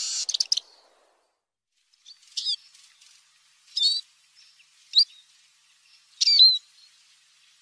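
Eurasian siskin calling: a burst of rapid, high twittering ends just after the start, then after a pause comes a series of four short, thin, slurred call notes about a second or so apart.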